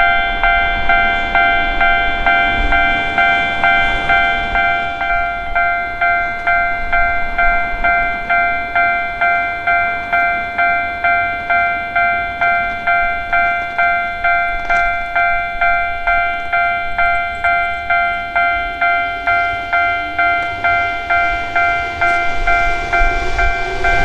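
Railway level-crossing warning bell ringing steadily, an electronic ding repeated about twice a second, signalling that a train is coming. Near the end the running noise of a Keihan 2600 series electric train rises as it draws close and passes.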